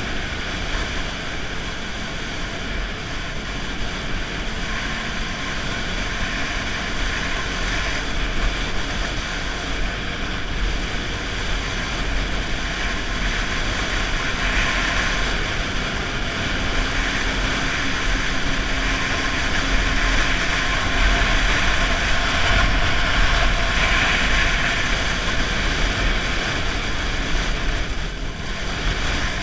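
Snowmobile engine and track running steadily at trail speed, with wind rumble on the microphone. It eases off briefly near the end.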